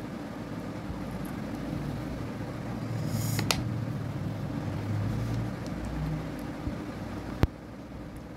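A steady low machine hum with a brief hiss and light click about three and a half seconds in, and one sharp click about seven and a half seconds in.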